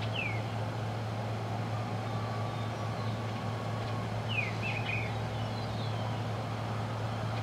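A few short, high, downward-sweeping bird chirps, one at the start and a quick cluster about four and a half seconds in, over a steady low hum and rumble.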